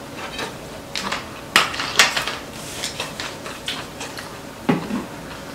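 Metal chopsticks and spoons clinking against ceramic bowls and plates during a meal: a handful of short, sharp clinks, the loudest two close together a little over a second in.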